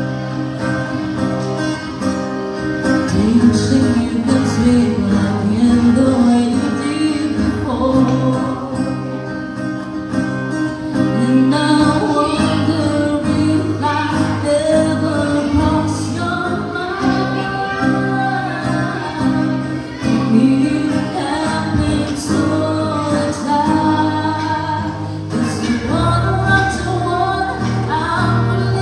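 A woman singing a song with acoustic guitar accompaniment, performed live.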